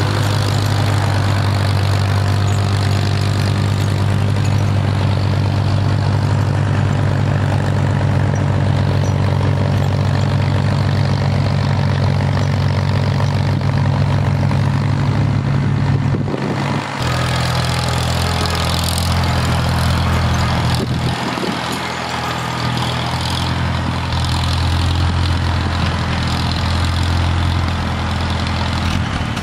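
Farmall M tractor engine running steadily while pushing snow. A short break a little past halfway changes the engine's note.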